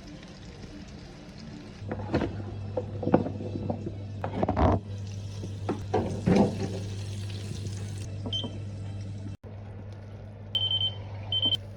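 Food being prepared in a kitchen over a steady hum: scattered knocks and clatters, a hissing stretch, then two short high electronic beeps near the end.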